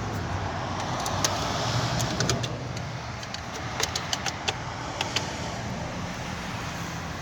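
BMW 325e heater blower fan on its lowest setting, whirring up and then fading as its resistor pack is wiggled in the socket, with scattered clicks of the pack and connector being handled. The fan running only intermittently points to a poor connection at the resistor socket, which the owner takes for a wiring fault at its female spade connectors.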